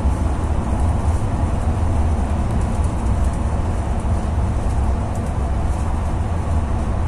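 Turkish YHT high-speed train running through a tunnel, heard from inside its rear carriage: a loud, steady, deep rumble.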